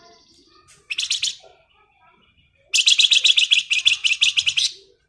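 A small songbird, the 'flamboyan' kept by Indonesian bird keepers, giving its rapid rattling 'ngebren' trill: a short burst about a second in, then a longer run of fast, evenly repeated high notes lasting about two seconds.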